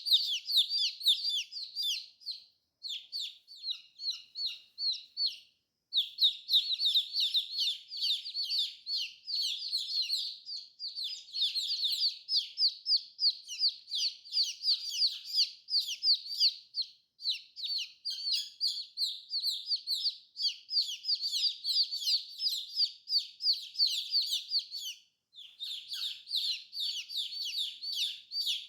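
Many baby chicks peeping together: a dense stream of short, high, downward-sliding chirps, overlapping one another, with three short breaks.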